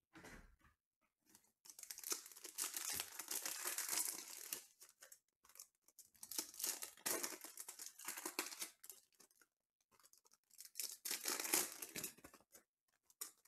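Foil wrappers of 2020 Panini Prizm football card packs being torn open and crinkled by hand, in three bouts of tearing and rustling with short pauses between.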